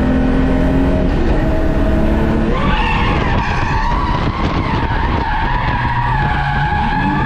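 A Holden VS Commodore's standard 3.8-litre V6 revs up hard under acceleration. About two and a half seconds in, the tyres break loose into a loud, wavering squeal as the car slides into a drift, and the engine keeps running under load beneath the squeal.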